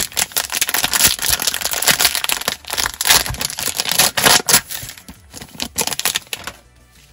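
Crinkly plastic wrapper of a trading card pack being torn and peeled open by hand: a dense crackling and crinkling that dies down shortly before the end.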